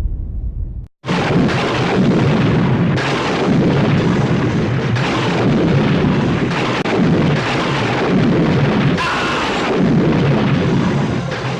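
Loud, dense rumbling noise that cuts in abruptly after a brief gap of silence about a second in, then runs on continuously.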